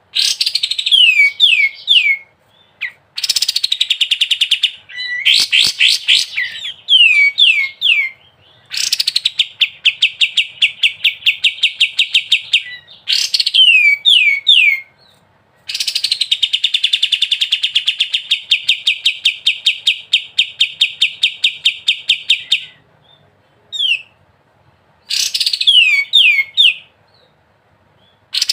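Kapas tembak songbird singing, alternating long rapid trills of evenly repeated notes (the 'ngebren' rattle) with short phrases of three or four downward-slurred whistles, broken by brief pauses.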